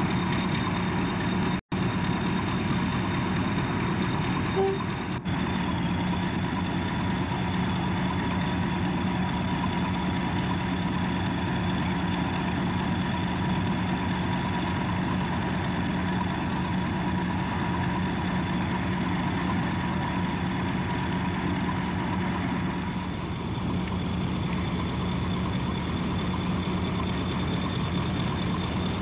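BR Class 50 diesel locomotive's English Electric engine idling: a steady deep hum with a constant high whine over it. The sound cuts out for an instant about two seconds in.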